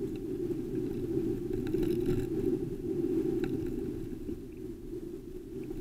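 Low, steady rumble of wind and road vibration picked up by a camera mounted on a moving bicycle, swelling a little in the middle, with a few faint clicks and rattles.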